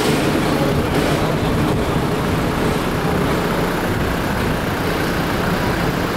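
Steady city street traffic noise: a continuous low rumble of vehicles on the road.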